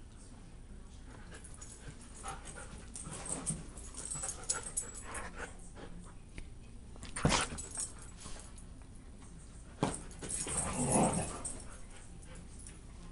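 Huskies playing rough together: scuffling and panting with short dog vocalizations, a sharp knock about seven seconds in and another near ten seconds, and a louder stretch of vocalizing just after that.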